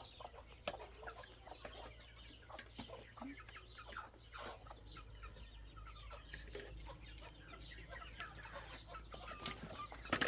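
Chickens clucking at feeding time, with many short scattered calls and a few sharp clicks near the end.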